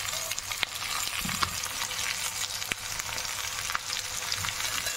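Mixed vegetables (carrot, capsicum, peas and potato) sizzling as they fry in hot oil in a kadai: a steady hiss, with a few sharp clicks of a steel ladle against the pan as they are stirred.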